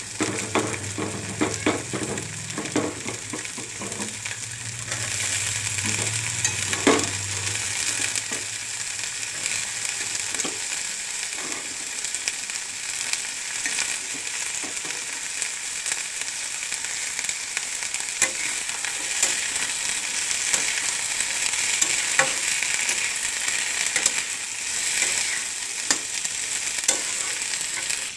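Onion, carrots, peas and green beans sizzling in hot oil in a kadai, stirred with a metal slotted spatula that clicks and scrapes against the pan. The sizzle gets louder from about five seconds in.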